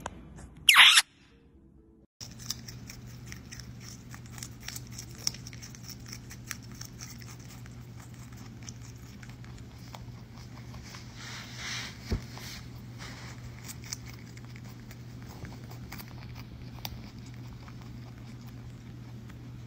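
About a second in, a brief, loud, high-pitched sound. Then a rabbit crunching a carrot: quick, irregular small crunches and clicks over a steady low hum.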